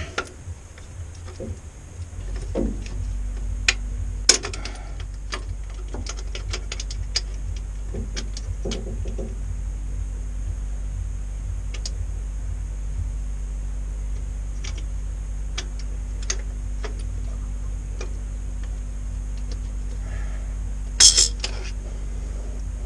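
Light metallic clicks and clinks of hands handling small fittings at the lift pump mount of a Cummins 6BT diesel, with a louder cluster of clicks near the end. A steady low hum comes in about two seconds in and carries on under them.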